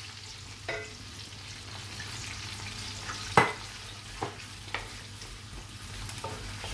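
Sliced onions sizzling as they fry in hot oil in an aluminium karahi, stirred with a wooden spoon. A few sharp knocks against the pan, the loudest about three and a half seconds in.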